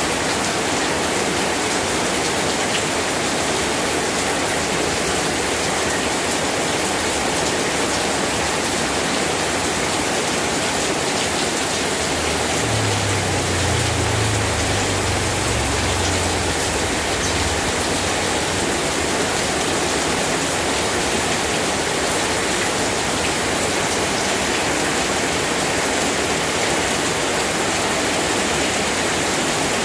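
Steady heavy rain, an even hiss of falling water, with a low rumble for a few seconds about halfway through.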